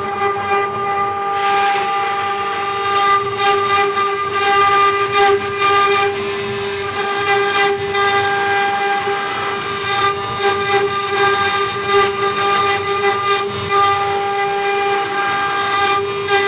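5-axis CNC router spindle whining at a steady pitch while its small carving bit cuts a groove into a wooden block, with irregular crackling from the bit biting into the wood.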